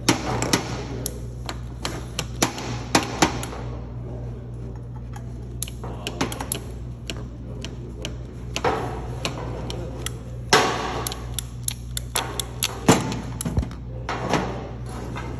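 Irregular clicks and knocks of tools and plastic pipe being handled at a workbench, over a steady low hum.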